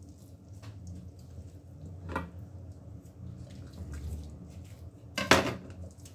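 A kitchen knife knocks and clatters against a wooden cutting board as a whole raw chicken is skinned. There is a light knock about two seconds in and a louder, sharper clatter near the end, over a low steady hum.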